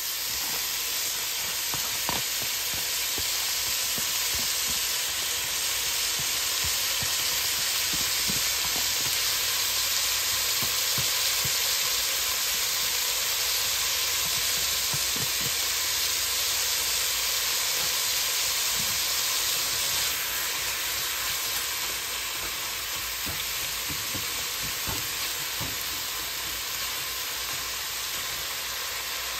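Ground beef frying in a nonstick pot with a steady sizzle, diced onion and bell pepper just added, with occasional light scrapes and taps of a silicone spatula stirring.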